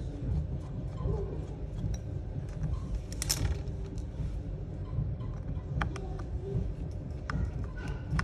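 Small clicks and scrapes of a precision screwdriver turning the pentalobe screws on the bottom edge of an iPhone 11. They sit over a steady low background rumble, with a short rustle about three seconds in.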